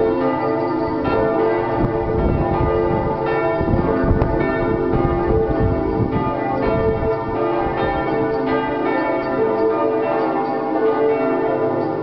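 Full peal of several church bells swinging and ringing together, their strokes overlapping continuously.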